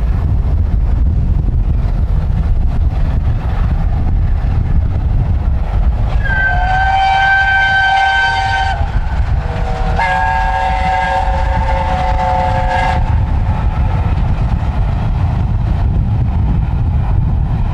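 LNER Peppercorn A1 steam locomotive 60163 Tornado sounding two long whistle blasts, each several notes at once, the first about six seconds in and the second, slightly longer, about ten seconds in. Strong wind buffets the microphone throughout.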